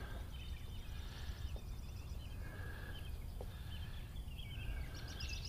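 Faint birdsong: short, thin whistled calls come and go, with a busier run of chirps near the end, over a low steady rumble of wind on the microphone.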